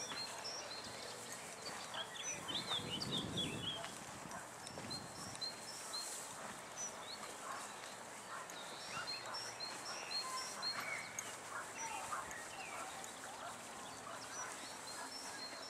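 Small birds chirping over and over in short high notes, over the scattered rustle and crunch of Irish cob mares pulling at and eating hay. A brief louder noise comes about three seconds in.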